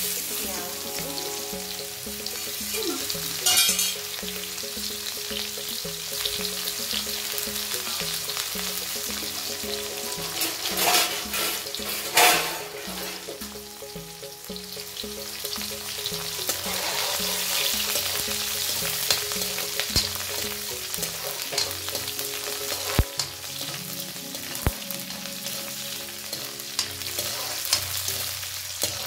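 Sliced onion and green chillies sizzling and crackling in hot oil in an iron kadai, with louder flares of spitting a few times in the first half. A spatula stirs through them near the end.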